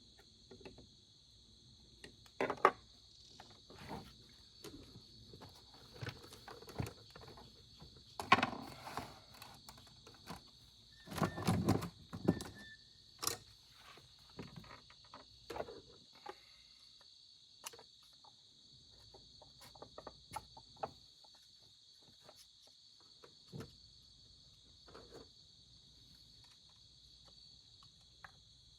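Hand tools clicking, tapping and scraping on a Husqvarna 395XP chainsaw's brake cover while a part is being pried out: scattered sharp clicks and knocks, with a busier stretch of rattling about eleven seconds in. A steady high-pitched background noise runs underneath.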